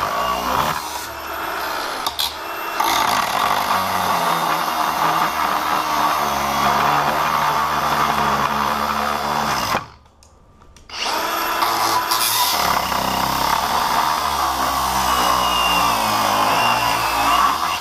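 Angle grinder cutting through a hardened steel padlock shackle, its motor pitch wavering under load. It stops for about a second near the middle, then starts again and cuts on.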